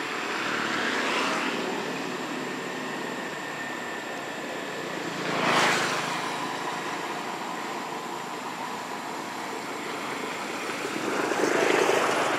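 Steady outdoor background noise that swells three times, briefly and loudest about halfway through.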